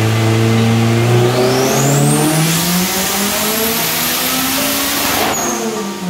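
Honda Integra's B20 VTEC four-cylinder engine in a full-throttle dyno pull, climbing steadily in revs for about four seconds with a high whine rising alongside. It drops off suddenly near the end as the throttle is closed.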